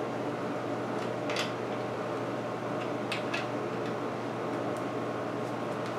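Steady whirring background noise, like a fan running, with a few light metal clicks about a second and three seconds in, as a screwdriver works the chainsaw's chain tensioner screw.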